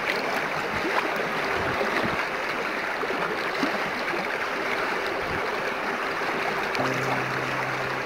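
Shallow stream rushing and splashing over stones, heard close up as a steady wash of water with fine bubbling. A low held music note comes in near the end.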